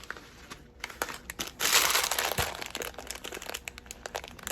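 Plastic food packaging crinkling and rustling as it is handled, with many small crackles, loudest from about a second and a half in.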